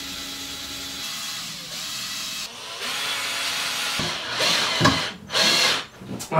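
Cordless drill running in stretches, then in two short, louder bursts near the end as its battery runs flat.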